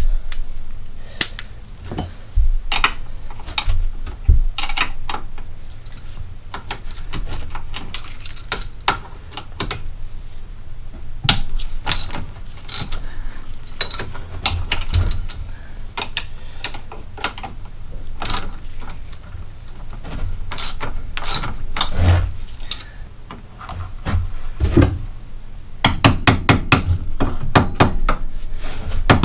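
Hand tools working on a UTV's steel front suspension as the spindle bolt is loosened: irregular metallic clicks and knocks, with a quick run of clicks like a ratchet wrench near the end.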